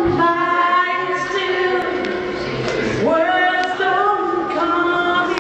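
Voices singing a melody in long held notes that slide from one pitch to the next.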